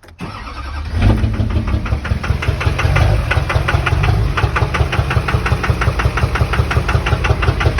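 2003 LB7 6.6-liter Duramax V8 diesel engine picking up about a second in, then idling with a rapid, evenly spaced knock. The cause is unknown: suggestions are a rod knock or a stuck-open injector on cylinder 4 or 6.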